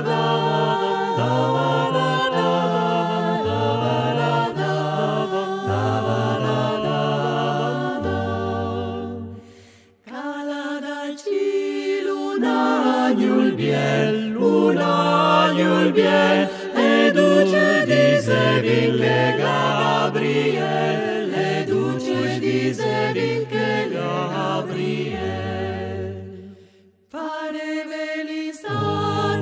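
Mixed-voice a cappella group singing in close harmony over a low sung bass line. The voices fade and stop for a moment about ten seconds in, come back in, and break off briefly again near the end.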